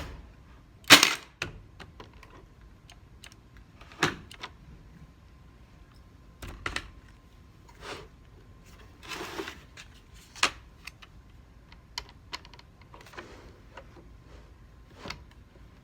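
Brad nailer firing into wooden boards: a sharp clack about a second in, the loudest, then several more clacks and smaller knocks spread out at irregular intervals.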